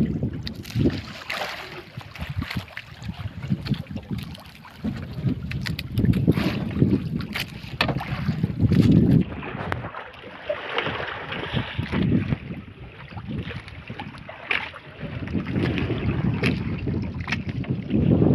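Wind buffeting the microphone and sea water splashing against the hull of a bamboo outrigger boat, rising and falling in irregular gusts, with scattered small knocks.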